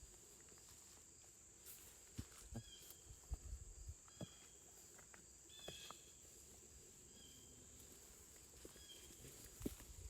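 Faint outdoor quiet with a steady high insect drone and a short chirp repeating every second or two. A few soft footsteps or twig snaps break in now and then, the sharpest near the end.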